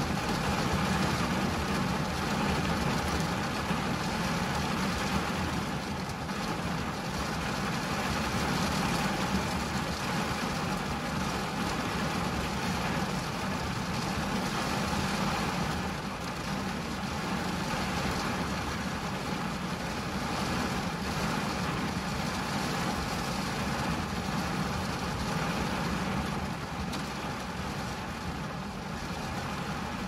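Steady rain on a car's windscreen and roof, heard from inside the car: a dense, even patter with a low hum underneath.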